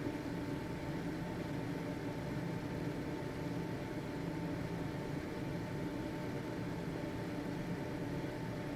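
Household ventilation fan running steadily: an even whoosh of air with a low motor hum and a thin, steady high tone.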